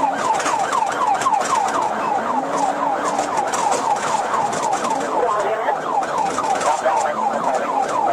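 Police car siren in fast yelp mode: a rapid up-and-down wail that repeats about six or seven times a second without a break.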